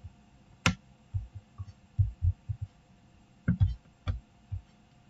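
Computer mouse clicks: one sharp click under a second in and two more around three and a half seconds, with a scatter of soft low knocks in between as the mouse is handled on the desk.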